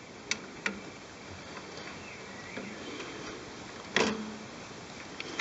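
Clicks, light rattles and one louder knock about four seconds in, with a short low ring, from hands working on the Miele washing machine's motor and drum after its mounting screws have been loosened.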